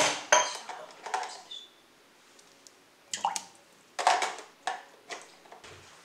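Kitchenware being handled at a drip coffee maker: a string of sharp clinks and knocks, some with a brief ring like glass or ceramic. They come in two clusters, one at the start and another about three to five seconds in.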